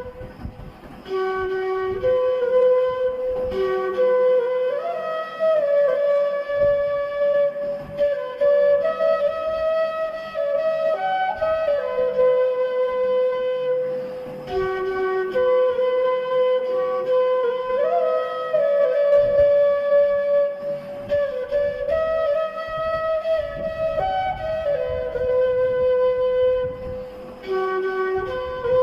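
Background music led by a flute playing a slow melody, with long held notes and slides from one note to the next.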